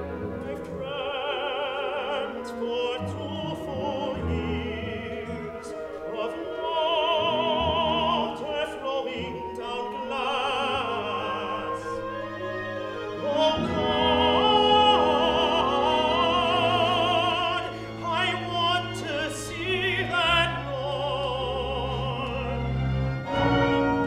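Male opera singer singing a sustained, wavering vocal line with wide vibrato over orchestral accompaniment, with low strings holding long notes beneath.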